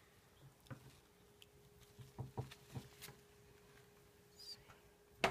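Faint handling noises from gloved hands and a knife working on a paper-towel-covered surface: a few soft knocks and taps about two to three seconds in, and a sharp click at the very end, over a faint steady hum.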